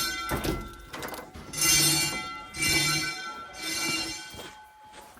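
Wheelock 10-inch fire alarm bells ringing in pulses during a fire drill: three rings about a second apart, each fading out, then a pause.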